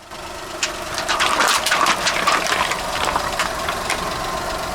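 Car tyre rolling over and crushing water balloons, with a rapid run of sharp pops and crackles from about half a second in to about three and a half seconds, over the car's engine idling steadily.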